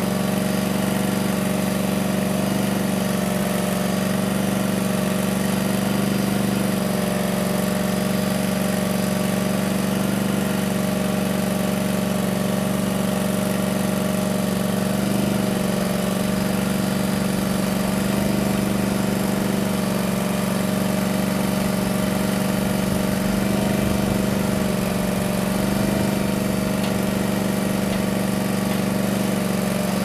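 Power Trac PT2425's 25-horsepower gasoline engine running steadily while powering the backhoe, its pitch wavering slightly now and then.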